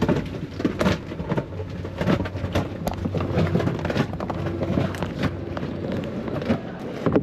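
Handheld camera being carried and jostled: irregular rustling, knocks and crackles of handling noise over a steady low hum.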